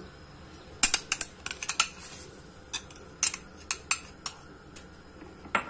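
Small hard pine cones and utensil clicking and clinking against a plate as they are set out on it: about a dozen quick, irregular clicks from about a second in, then one more near the end.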